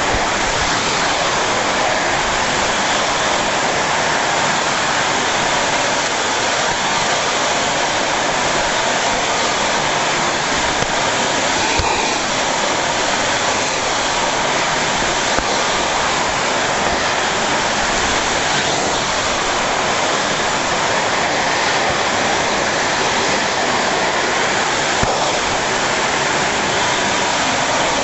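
Vacuum cleaner running steadily, an even, loud rushing of motor and suction, with a few faint knocks.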